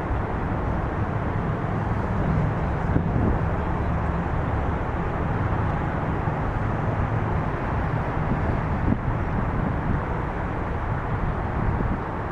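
A steady engine hum running under a constant noise haze, without letting up.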